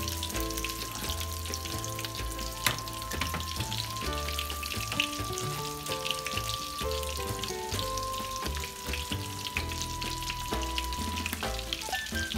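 Coconut-breaded chicken strips frying in hot oil in a skillet, a steady crackling sizzle. Background music with a simple melody plays over it, and there is one sharp click about three seconds in.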